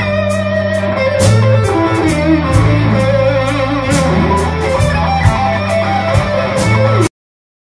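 Live blues-rock band with no vocals: electric guitar playing a lead fill over bass and drums, with a cymbal keeping a steady beat. About seven seconds in the sound cuts out completely.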